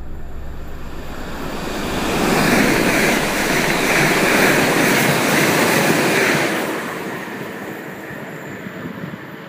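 A train passing at speed: a rushing noise that swells about two seconds in, stays loud for some four seconds, then fades away.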